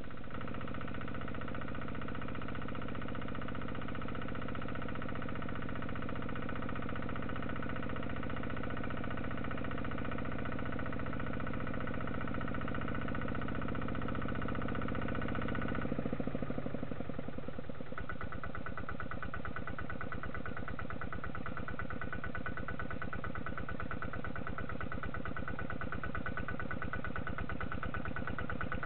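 Small diesel engine of a Kubota light tractor running steadily while it works in a flooded rice field. About sixteen seconds in, its note drops, and from about two seconds later it settles into a fast, even chugging.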